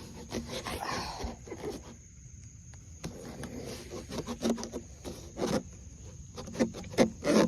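Rubbing, scraping and scattered knocks as the recording phone is handled and moved around, with no engine running.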